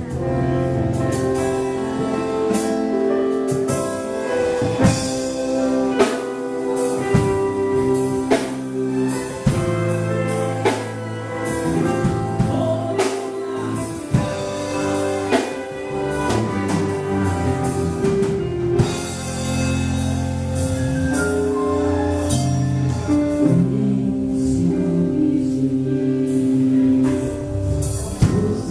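Live gospel band music: a drum kit striking repeatedly over held instrumental chords.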